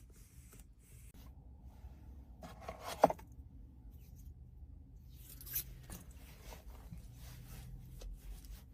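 Full-grain leather belt being handled: faint rubbing and scraping of the leather, with one sharp click about three seconds in and another short scrape a little past halfway.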